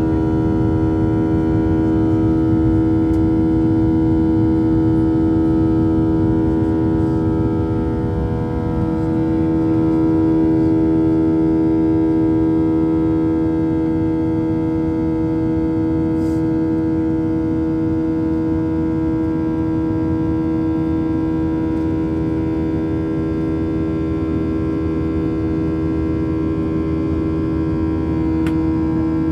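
Inside the cabin of a Boeing 737-700 in flight: the CFM56-7B engines' steady drone, with one strong held tone and several fainter ones over a low rush of air.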